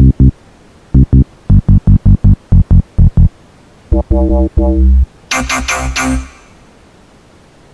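Synth samples from a Vina House sample pack played one after another: a quick run of short, loud bass notes, then a longer pitched note, then a few bright synth stabs.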